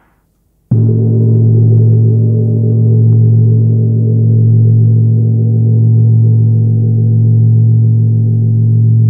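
Tibetan gong struck once, less than a second in, after the previous ring has faded out. It then rings on loud and steady, with a deep hum and slow swells in loudness.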